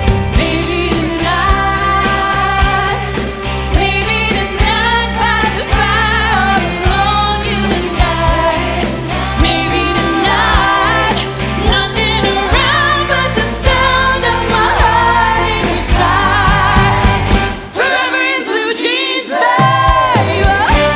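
Sung vocals over a pop-rock band in a show-tune arrangement. The bass and drums drop out for about two seconds near the end, then the full band comes back in.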